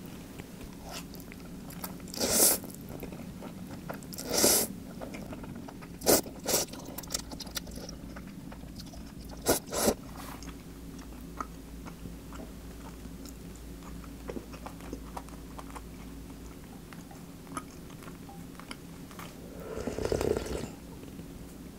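Eating ramyeon noodles: two short slurps early on, then chewing with a few sharp clicks. A longer slurp comes near the end.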